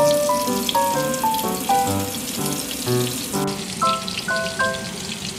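Enoki mushrooms deep-frying in oil heated to 180 °C: a steady sizzle with small crackles. It sits under background music, a light melody of short notes.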